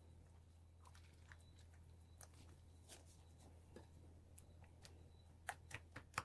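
Very faint wet stirring: a silicone spatula folding thick sour cream into melted chocolate in a glass bowl, with soft squelches and scattered light clicks, a few sharper clicks near the end, over a low steady hum.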